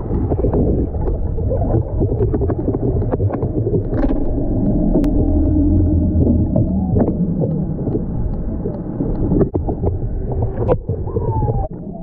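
Muffled underwater sound, a dense low rumble and water movement heard through a submerged camera housing, with scattered clicks and knocks.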